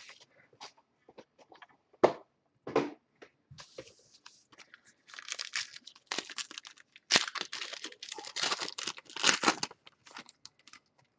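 Trading card pack wrappers being torn open and crinkled, with a few sharp knocks from handling the packaging and a longer stretch of crackly tearing in the second half.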